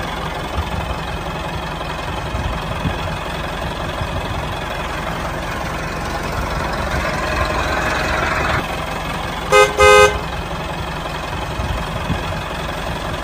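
Tractor engine running steadily, with two short horn toots close together about ten seconds in.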